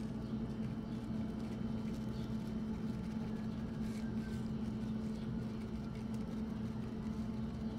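A steady low hum over faint even background noise, with no distinct strokes or knocks.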